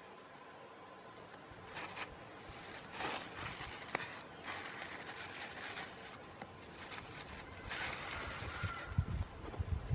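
Irregular rustling and scraping with a few sharp clicks, from the bird trap being handled and set up by hand. There are low thumps about nine seconds in.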